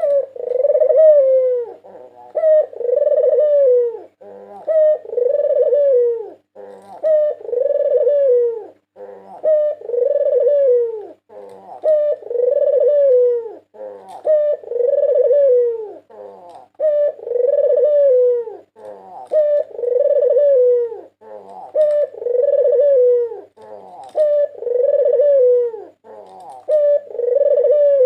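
White puter (domestic Barbary dove) cooing over and over: a long rolling coo about every two and a half seconds, each one led by a few short clipped notes.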